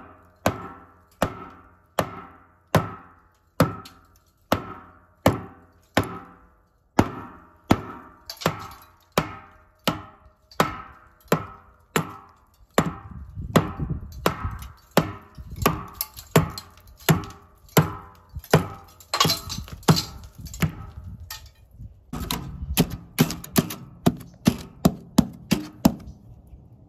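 Hammer striking a knife to chip away cracked cement stucco: a steady series of sharp knocks, each with a brief metallic ring. About one blow a second at first, quickening to about two a second about halfway through.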